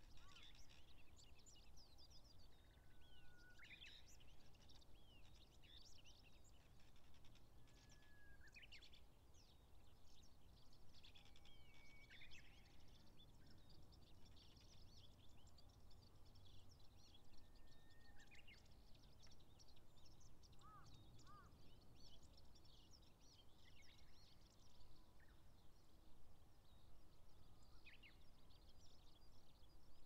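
Faint birdsong from several wild birds: scattered chirps and whistles. One song repeats every few seconds, a held flat whistle ending in a quick rising phrase. Under them runs a low steady rumble of background noise.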